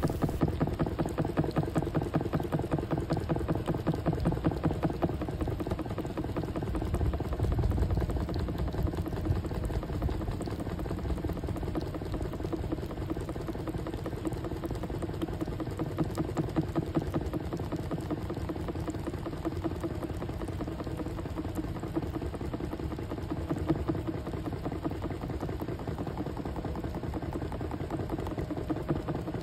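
Electric spin dryer for delicate laundry running at speed: a steady motor hum with a fast, even vibration as the drum spins the water out of the wet items.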